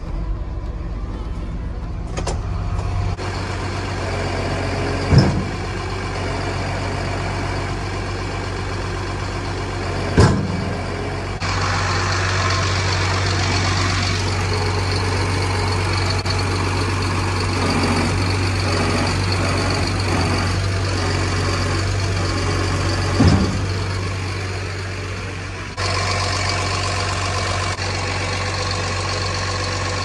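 Diesel lorry engine starting and then running steadily at idle, getting louder and running harder from about eleven seconds in. Three short sharp knocks stand out, about five, ten and twenty-three seconds in.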